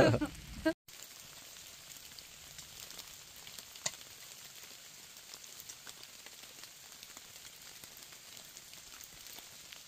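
Light rain falling, a faint steady patter with scattered small drops ticking and one sharper tick about four seconds in.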